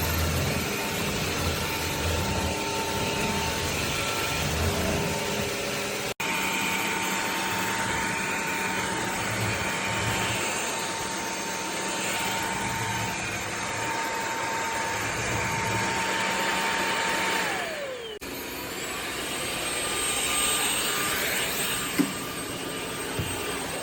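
Cordless stick vacuum running, a steady motor whine over rushing suction. Near the end of a long stretch the motor winds down in pitch; after a cut a high whine rises and holds as a vacuum motor spins up again, with a single click a few seconds later.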